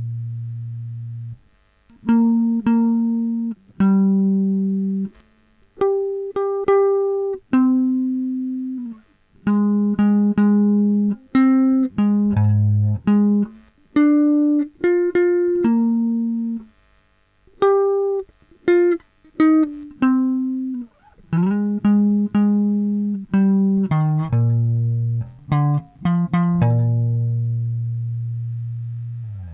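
Guitar playing a sungura melody line slowly, one plucked note at a time, each note ringing for about a second before the next, with a long held low note near the end.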